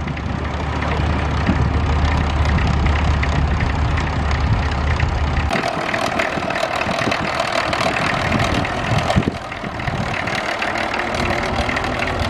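Vintage farm tractor engine idling. A steady low drone runs through the first half; the sound changes abruptly about five and a half seconds in and again about nine seconds in.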